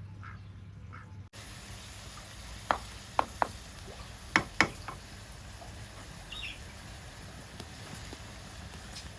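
Farm fowl calling in a quick run of repeated duck-like calls for about the first second. It breaks off into a steady sizzling hiss from cooking over an open wood fire, with five sharp pops and crackles a few seconds in.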